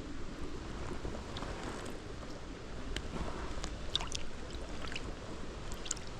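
Creek water running steadily, with a few small clicks and splashes.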